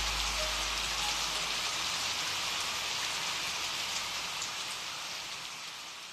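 Steady rain falling, slowly fading out toward the end.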